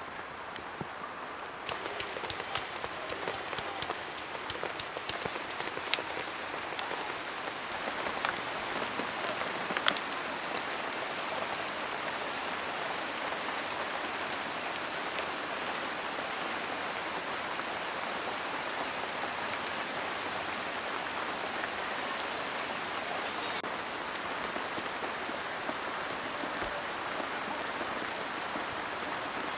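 Food frying in hot oil, sizzling and crackling: sharp pops come thick for the first ten seconds or so, then it settles into a steady sizzle.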